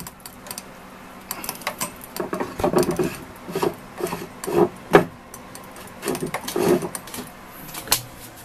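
Irregular rubbing and light knocks of handling close to the microphone, loudest about five seconds in, over a faint steady hum.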